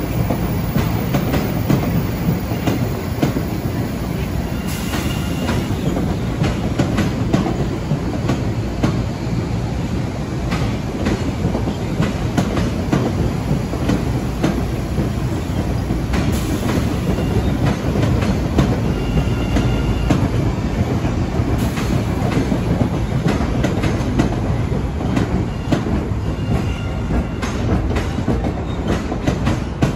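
Train rolling along the track: a continuous heavy rumble with the wheels clicking over rail joints, and a few faint brief squeals from the wheels now and then.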